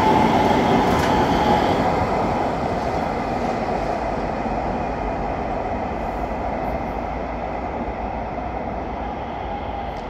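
Light-rail tram passing close by, then running away along the street. Its rumble and a high whine fade steadily as it draws off.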